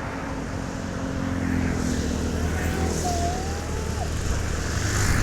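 A large road vehicle, likely a bus, with a low engine rumble that grows steadily louder as it approaches.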